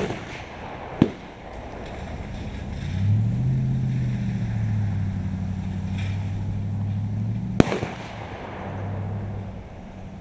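Gunshots at a shooting range: sharp cracks about a second in and again near the end, the last one ringing on. Under them, the low steady hum of an engine.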